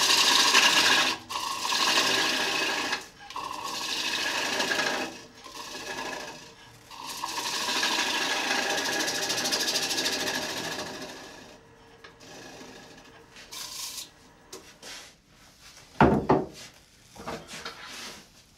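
A gouge cutting a spinning wooden bowl on an electric lathe: a run of shaving cuts in about five passes over the first eleven seconds, with brief gaps between them. After that the lathe runs with no cut, and there is one sharp knock about sixteen seconds in.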